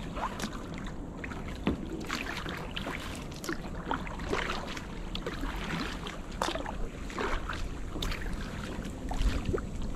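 Kayak paddling: paddle blades dipping into calm river water with short, irregular splashes and drips, over a low steady rumble.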